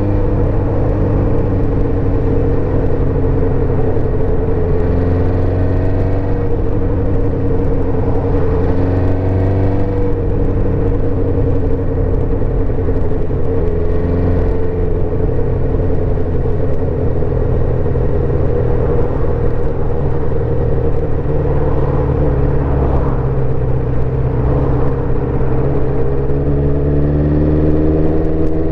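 1984 Suzuki GSX-R400's inline-four engine running steadily while the bike is ridden, its pitch rising and falling gently with the throttle, under a constant rush of wind and road noise.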